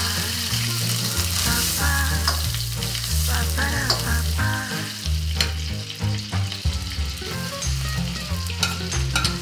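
Butter sizzling and frying in a hot wok, stirred with a metal spatula that scrapes and taps the pan, with a few sharper clicks near the end.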